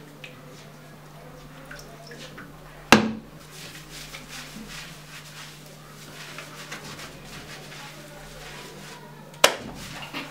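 Two sharp knocks, about three seconds in and near the end, over a steady low hum, with faint rustling between them.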